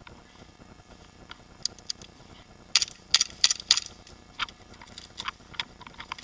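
Airsoft gun firing a quick string of shots: four loud, sharp snaps about a third of a second apart in the middle, with fainter scattered clicks around them.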